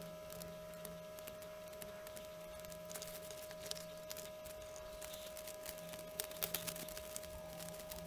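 Faint steady electrical hum with scattered small clicks and taps from hands handling LED leads and a printed circuit board. A few sharper taps come about six seconds in.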